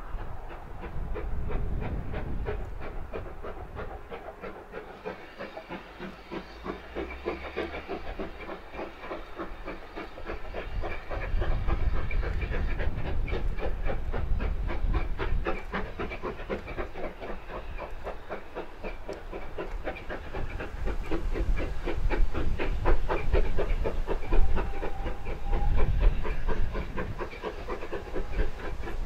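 Two steam locomotives double-heading a passenger train, working steadily with a fast, even run of exhaust beats over the rumble of the train on the track. The sound grows louder as the train approaches, with a step up about a third of the way in and another past the middle.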